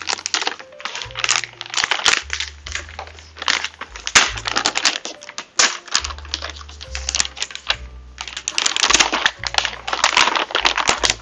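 A metallized anti-static bag crinkling and rustling loudly with sharp crackles as a motherboard is worked out of it, over background music with a stepping bass line.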